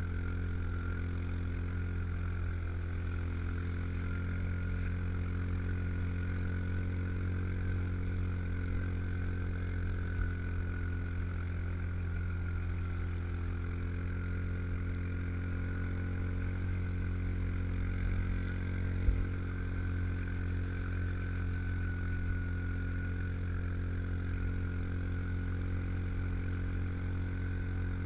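Yamaha Rhino 700 side-by-side on Camoplast Tatou 4S tracks, its single-cylinder engine running at a steady pace through snow: an even low drone with a thin whine above it. A couple of small knocks come about 18 to 19 seconds in.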